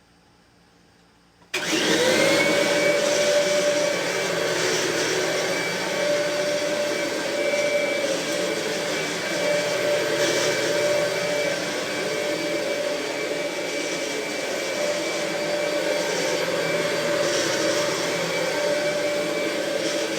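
A Kirby G4 Tech Drive upright vacuum cleaner is switched on about a second and a half in. Its motor spins up with a quick rising whine, then runs steadily with a constant high whine.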